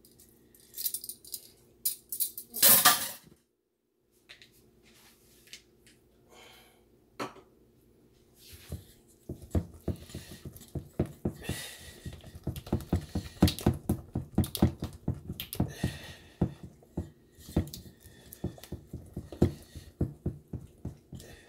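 A hand utensil beating lumpy cream cheese and strawberry batter in a stainless steel mixing bowl, knocking and clinking against the metal. After a brief louder scrape about three seconds in and a few scattered knocks, the beating turns into a fast, steady run of clinks, several a second, from about eight seconds in.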